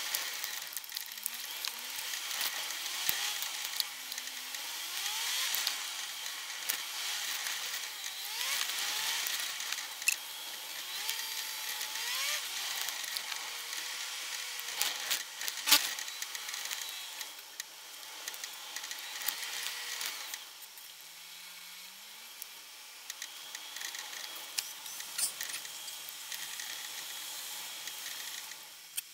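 Car engine and road noise inside the cabin, fast-forwarded so it sounds like a high whine, with short rising whines recurring every second or two. A few sharp clicks stand out, the loudest about sixteen seconds in.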